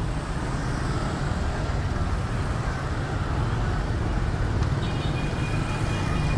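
Busy street traffic: bus and car engines with motor scooters passing make a steady low rumble. A faint high-pitched whine comes in for about the last second and a half.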